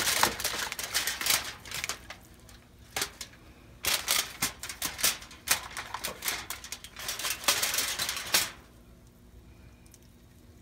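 Aluminium foil crinkling and crackling under hands handling meat on it, in two spells of dense crackles. The crackling stops about two seconds before the end.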